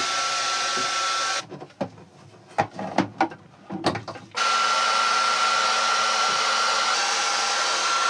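Super Stripper 1500 heat gun running with a steady hiss and a thin whine, heating a hose end to soften it. It stops about a second and a half in, leaving a few sharp clicks and knocks of hands working at the hose fittings, then starts again about four seconds in and runs steadily.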